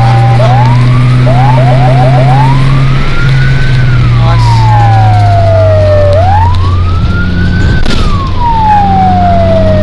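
Fire brigade vehicle's electronic siren heard loud from inside the cab: quick repeated yelp chirps for the first few seconds, then two slow wails, each rising and falling. The vehicle's engine drones steadily underneath.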